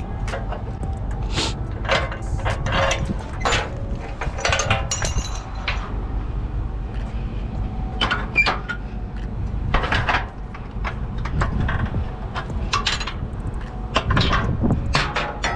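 Irregular metal clanks and knocks from hand work on a car-hauler trailer's decks, pins and chains, over a steady low rumble.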